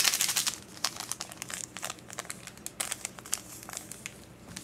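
Foil wine-yeast sachet crinkling and rustling as it is worked at by hand to open it: a dense run of crackles in the first second, then scattered crinkles that thin out toward the end.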